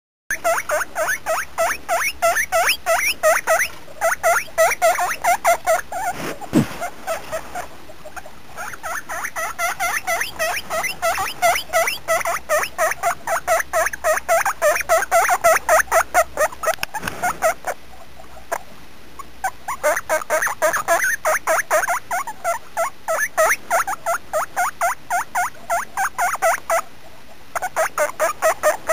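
Guinea pig squeaking: long runs of short, pitched squeaks at about five a second, broken by brief pauses.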